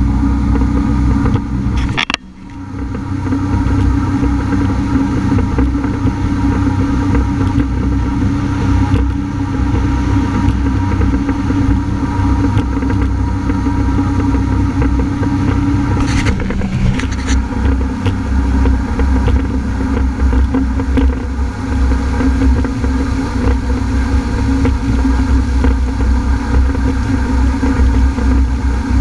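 Honda AquaTrax F-12X personal watercraft's turbocharged engine running steadily under way, with heavy low rumble. The sound drops out sharply for a moment about two seconds in, and the engine note shifts slightly lower around the middle.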